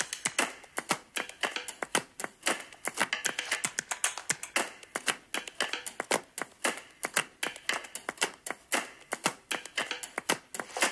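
A quick, uneven run of sharp claps, several a second.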